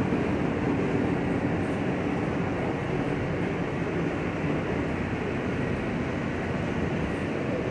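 Interior noise of an R160 New York subway car under way: a steady running sound of wheels on rail and traction motors, heard inside the car.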